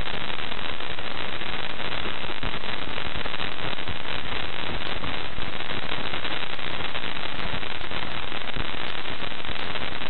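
Parker Solar Probe plasma-wave recording played back as sound: a dense, steady crackling hiss full of tiny pops. The pops are hot plasma waves and microscopic dust grains striking the spacecraft at high speed.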